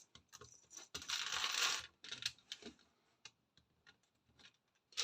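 Small plastic Lego pieces clicking and clattering as they are picked through and handled, with a denser rattle of rummaging about a second in, then sparser single clicks.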